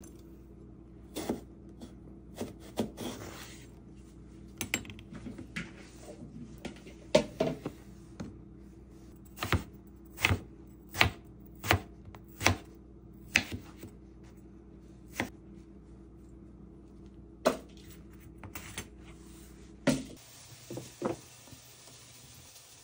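A kitchen knife cutting eggplant on a plastic cutting board: a series of sharp knocks as the blade strikes the board, evenly spaced for a stretch in the middle at about one every three-quarters of a second. A steady low hum sits underneath and stops near the end, where a few more knocks follow.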